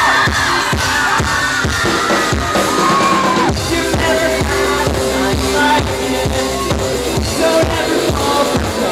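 Live band playing loud through a club PA: a steady drum-kit beat with bass guitar, fans' high screams trailing off in the first few seconds as the song gets going.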